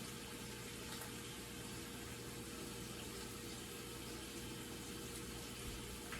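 Steady background hiss with a faint constant hum, and one light click near the end.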